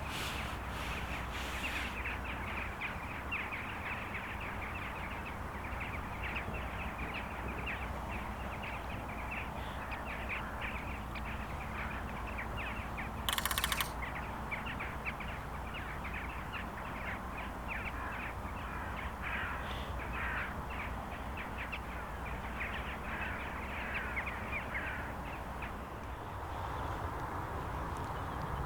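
Birds calling: a steady run of short, harsh calls throughout, with one louder, harsher call about halfway through.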